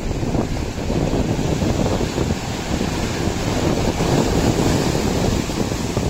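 Wind buffeting the microphone over the steady wash of sea surf around the camera.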